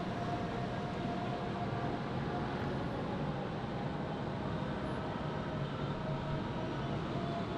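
Steady downtown street traffic: a continuous hum of engines and tyres with no single vehicle standing out, and a few faint thin tones over it.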